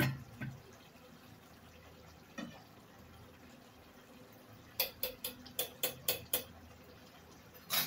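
Pot of chicken and potato curry simmering: a faint steady hiss, broken by a few scattered sharp clicks and a quick run of about seven clicks a little under five seconds in.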